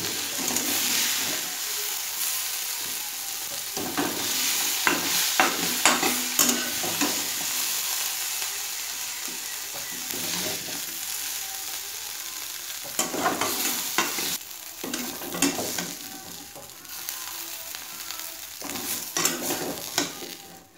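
Prawns sizzling in hot oil in a steel kadai while a metal spatula scrapes them out of the pan, with repeated scrapes and clinks of the spatula against the steel. The sizzle grows quieter near the end.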